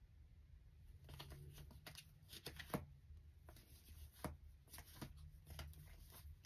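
Tarot cards being shuffled and flicked through in the hands: a dozen or so faint, sharp card snaps at uneven intervals, the loudest a little under three seconds in, over a low steady hum.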